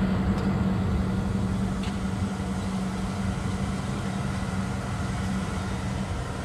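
An engine running steadily, a low rumble with a steady hum that fades away about five and a half seconds in.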